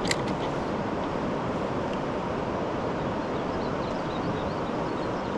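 Steady wind rushing over the camera microphone on open water, with one short sharp click right at the start.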